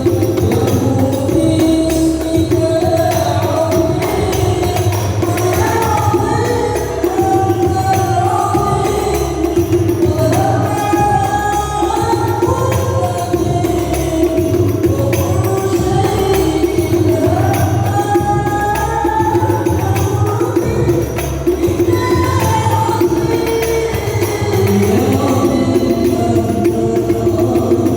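Devotional Islamic sholawat singing, a melody in repeating phrases, over frame-drum and tambourine percussion, played loud through a sound system.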